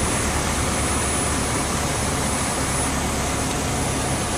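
Cabin noise inside a Cessna 152 in the landing flare: the four-cylinder Lycoming engine and propeller running with a steady hum under rushing airflow, unchanging throughout.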